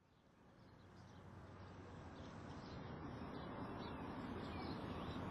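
Outdoor background ambience fading in from silence and growing steadily louder: a steady low rumble with faint bird chirps over it.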